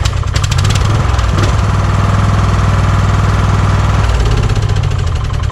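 Kohler Courage engine of a Craftsman YS4500 lawn tractor running steadily, just after being started.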